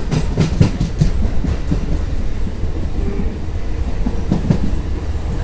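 Train running along the track: a steady low rumble with bursts of clicking from the wheels passing over rail joints, a cluster in the first second and another a little after four seconds in.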